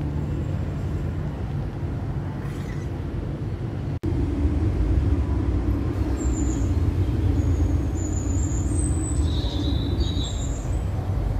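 Steady low rumble of background noise with no music. It drops out for an instant about four seconds in and returns with a steadier hum, and a few short high chirps sound in the last few seconds.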